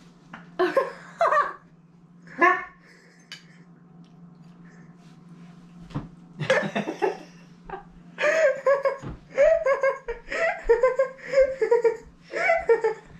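People laughing: a few short laughs in the first seconds, then a long run of quick repeated laughs through the second half. A faint steady low hum runs underneath.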